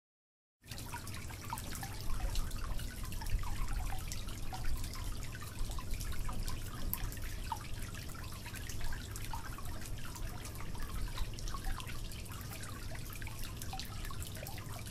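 Water falling from three small pipe spouts into an aquarium, trickling and splashing steadily with many small drips. It starts about half a second in.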